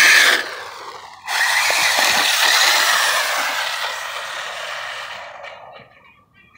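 WLtoys 12428 electric RC buggy accelerating on concrete: its motor and gears whine over the rush of the tyres. A loud burst cuts off early, then a second run starts suddenly about a second in and fades over a few seconds as the car speeds away. The rear differential is stripped, so only the front wheels are driving.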